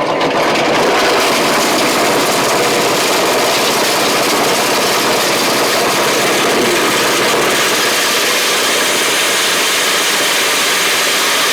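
Milling machine running steadily under load while grinding dried maize into chicken feed: a loud, even grinding noise.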